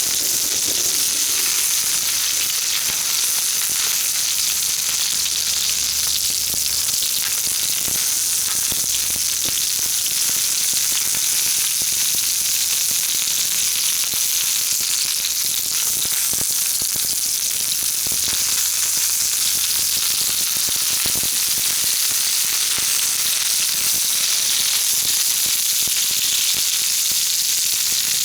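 Jumbo shimeji mushrooms frying in olive oil over a wood fire: a steady sizzling hiss with a few small pops.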